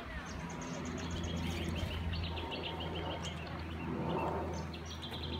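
A bird calling in quick runs of high chirps, several notes a second, with a second run near the end, over a low steady hum.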